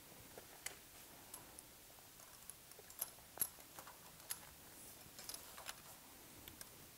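Faint, scattered light clicks and clinks of metal spring hooks being handled on a Pilates trapeze frame.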